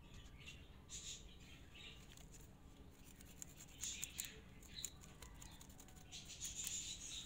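Faint scraping of a blade along a green plant stem, wounding the cutting's outer bark to expose the green layer beneath, in short scratchy strokes with small clicks.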